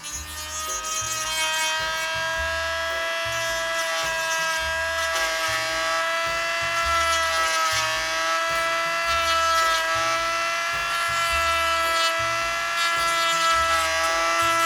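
Goxawee G4007 rotary tool fitted with a drill bit, running at speed with a steady high whine that wavers slightly in pitch. Background music with a regular bass beat plays underneath.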